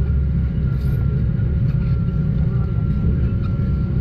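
A motor running steadily: an even low rumble with a faint, constant hum above it.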